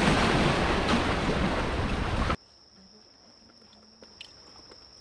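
Loud wind and surf noise on the microphone, which cuts off abruptly about two and a half seconds in. What follows is a quiet stretch with a steady high-pitched insect trill, like crickets, and a few faint clicks.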